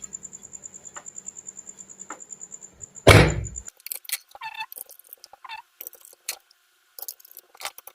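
Metal parts of a ceiling fan being handled and fitted together: a heavy knock about three seconds in, then small scattered clicks and scrapes. Before the knock a faint high tone with a regular pulse and a low hum runs, and it stops with it.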